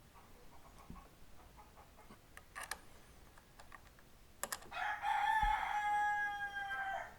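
Rooster crowing once, one long call of about two seconds that holds its pitch and trails slightly down, after a couple of faint clicks.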